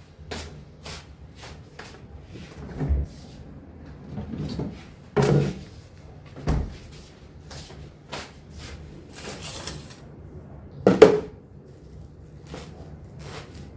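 Handling sounds of groceries being unpacked: a string of short knocks and clicks as items are picked up and set down, with a brief rustle near ten seconds and the loudest knock about eleven seconds in.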